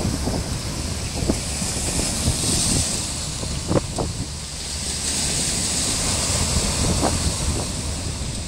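Sea waves breaking and washing over a rocky shore lined with concrete tetrapods, with a few sharper splashes about a second in, near four seconds and about seven seconds in. Wind buffets the microphone throughout.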